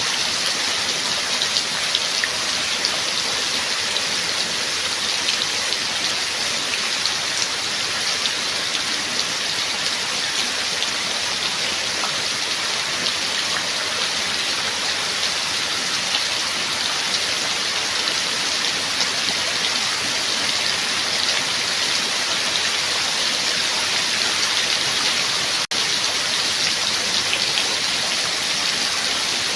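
Steady rain falling: a dense, even hiss of many drops with scattered single drop ticks, broken by a split-second dropout near the end.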